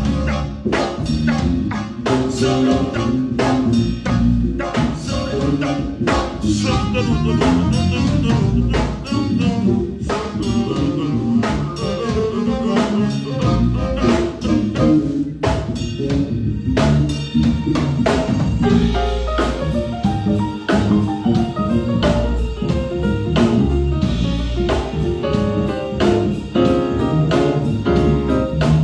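Live band playing an instrumental jazz groove: drum kit with steady hits under bass and pitched keyboard parts.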